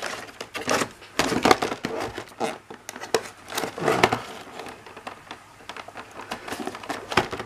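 Cardboard box and plastic blister packaging of a toy starter pack being handled: irregular crinkling and rustling with small taps, busiest in the first half and lighter after about four seconds.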